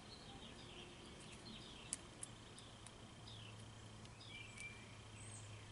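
Near silence: faint room tone with a low steady hum, two small sharp ticks about two seconds in, and faint short high chirps.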